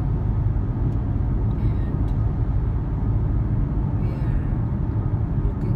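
Steady low rumble of road and engine noise inside the cabin of a car driving along a highway.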